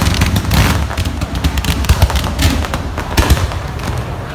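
Fireworks going off: a dense run of sharp bangs and crackling, many overlapping, over a low rumble.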